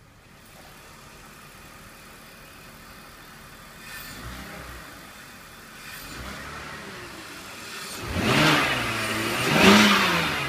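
2002 BMW 525i's 2.5-litre inline-six idling, blipped lightly twice around four and six seconds in, then revved hard twice in quick succession near the end, the pitch rising and falling back each time; the second rev is the loudest. The high-mileage (225k) engine runs smoothly.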